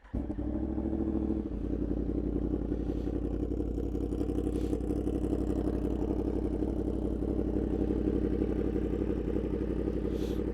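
2024 Yamaha MT-10's crossplane inline-four through an aftermarket RaceFit Growler X exhaust, starting warm and catching at once. It runs slightly unsettled for the first second and a half, then settles into a steady, pretty loud idle with an even exhaust pulse.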